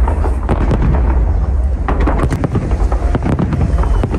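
Fireworks going off in quick succession: many sharp bangs and crackles, several a second, over a continuous low rumble.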